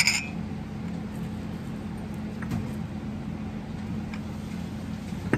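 A porcelain teacup clinks against its saucer right at the start, with a short ringing tone. A steady low hum follows, broken by a few faint taps as the cups are handled.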